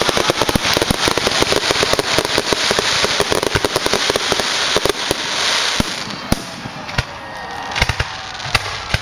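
Fireworks aerial shells bursting into crackling gold stars: a dense, rapid crackle over a hiss. About six seconds in it thins out to a few separate loud bangs.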